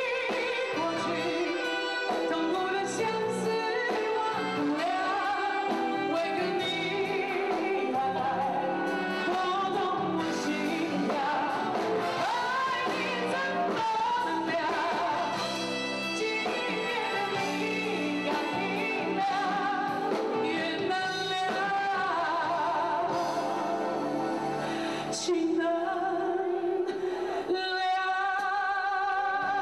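A woman singing a slow Mandarin love ballad into a microphone with live band accompaniment.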